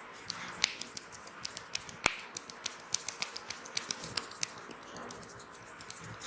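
Quick irregular clicks and snaps from hands working on the head during a massage, with one sharper crack about two seconds in.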